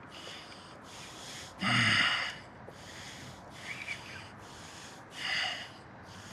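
A man breathing hard through his nose and mouth while fighting a big fish on rod and reel, with short hissing breaths about once a second. About two seconds in comes one louder exhale with a grunt.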